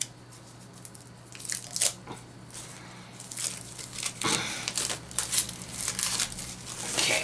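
Clear plastic shrink wrap being torn and peeled off a small metal blind-box canister, crinkling and crackling in irregular bursts that grow busier after about three seconds.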